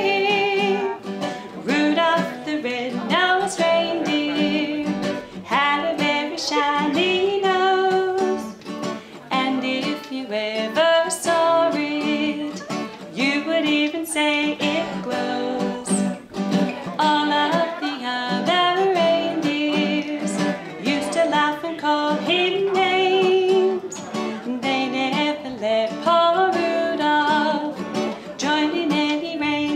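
Music: an acoustic guitar strumming under a singing voice.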